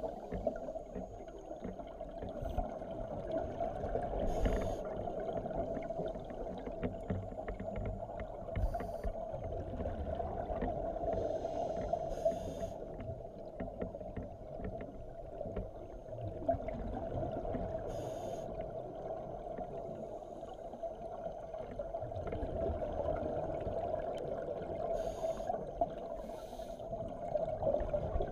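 Scuba diving heard underwater through a camera housing: a steady low hum, with short bursts of regulator exhaust bubbles every few seconds as a diver breathes out.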